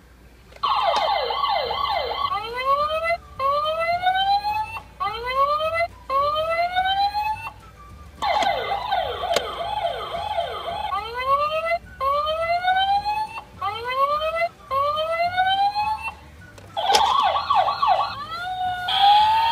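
Electronic siren sound effect from a Matchbox Power Shift toy fire truck, in three bursts. Each burst opens with a quick run of falling yelps, then slower rising whoops about one a second.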